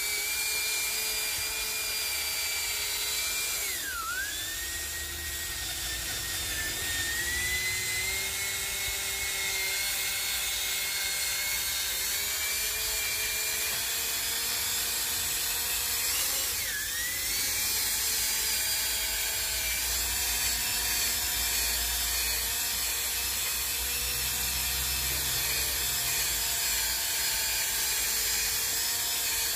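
Cordless drill spinning a foam buffing pad with G3 rubbing compound against a faded plastic headlight lens, cutting back the bleached outer layer; the motor whine runs steadily. Twice, about four seconds in and again about seventeen seconds in, the whine drops sharply in pitch and climbs back as the pad loads up.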